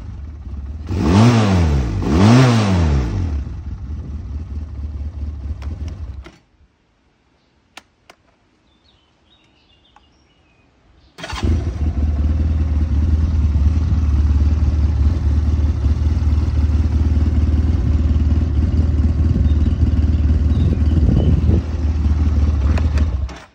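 SMC CBT-250 Quadzilla quad's 250 cc engine revved twice, idling, then switched off about six seconds in. After a few quiet seconds with a click, it starts again about eleven seconds in and idles steadily until it is shut off near the end.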